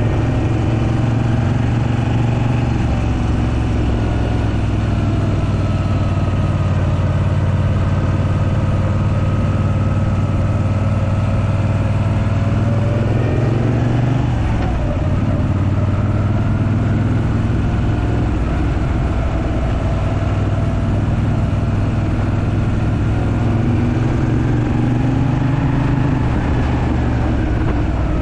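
Moto Guzzi V7 III Racer's air-cooled transverse V-twin running under way, its pitch rising and falling several times as the revs change, with a marked dip and climb about halfway through.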